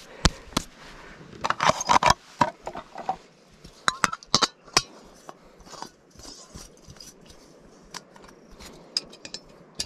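Camp cooking gear being handled and set out: scattered clicks and clinks with short scraping sounds, busiest about a second and a half in and again around four seconds.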